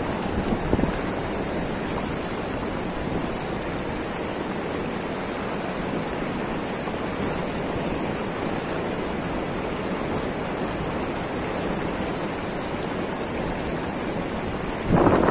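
Steady rush of a fast river current flowing past. A brief, louder sound comes near the end.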